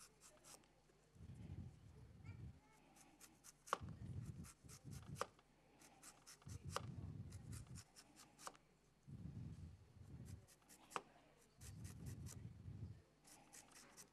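Chef's knife slicing a Granny Smith apple into thin rounds on a plastic cutting board: quiet runs of cutting strokes every second or two, each with sharp clicks as the blade meets the board.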